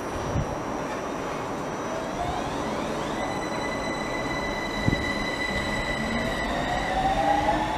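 Copenhagen Metro driverless AnsaldoBreda train pulling away from the platform, its electric traction motors giving a whine that climbs slowly in pitch as it gathers speed, over the rumble of the wheels on the rails. A short knock comes about five seconds in.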